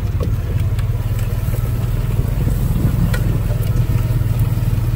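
Engine of an open side-by-side utility vehicle running steadily as it drives along a dirt field edge: a constant low drone with a few light clicks and rattles.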